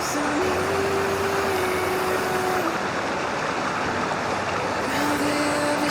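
Steady rush of a mountain stream, water running fast over rocks, loud and unbroken.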